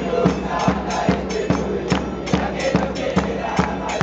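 Football supporters chanting together in a loud crowd song, driven by a drum beating a steady rhythm of about three strokes a second.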